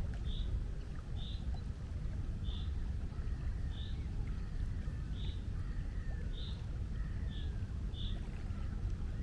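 Seaside ambience: a steady low rumble of surf and wind, with a bird's short high chirp repeated about once a second.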